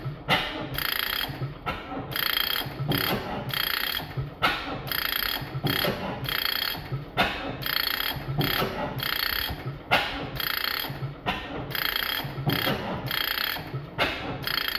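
15 hp Fairbanks Morse Type N single-cylinder engine running on propane through a partly blocked-off 3/8-inch fuel hole, picking up speed. Its mechanism clatters in a steady rhythm of about two beats a second, with a sharper crack now and then.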